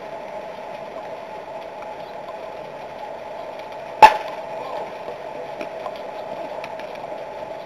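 A baseball bat hits a pitched ball once with a sharp crack about four seconds in, sending a ground ball to the infield. Under it is a steady background hum.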